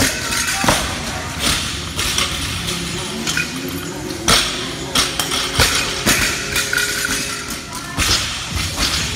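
Barbells loaded with rubber bumper plates being dropped and set down on a rubber gym floor: a string of sharp, irregular thuds, several of them with a quick bounce. Gym music and voices play underneath.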